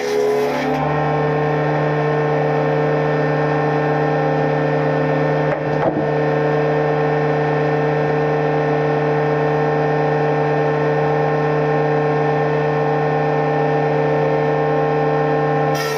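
Woodworking machine running at a steady pitch, with a brief irregular scrape about five and a half seconds in.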